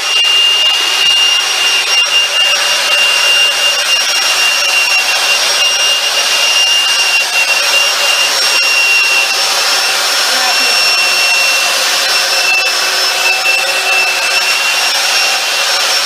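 Vacuum cleaner motor and fan, taken out of the cleaner and fitted in a steel shroud as a blower, running at full speed: a loud, steady high whine over a rush of blown air.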